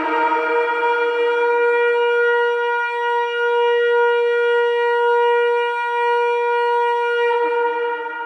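Shofar sounding one long, steady held blast, rich in overtones, dropping to a lower note and starting to fade near the end.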